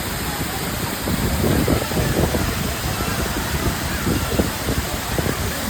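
Steady rush of a heavily flowing waterfall, with an uneven low rumble underneath.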